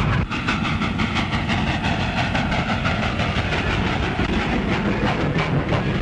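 Steam locomotive running, with a fast, even clattering rhythm.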